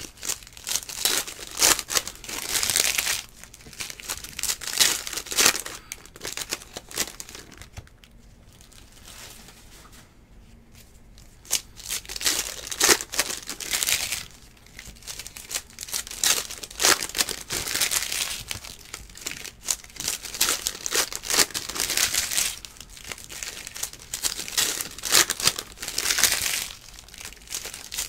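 Plastic wrappers of basketball trading card packs being torn open and crinkled by hand, in irregular bursts with a quieter pause a third of the way through.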